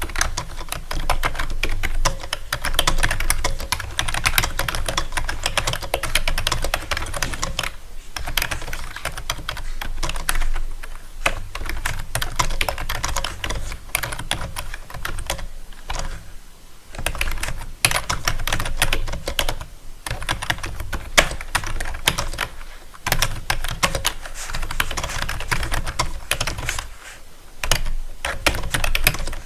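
Fast typing on a keyboard: a dense, continuous run of key clicks, broken by a few brief pauses.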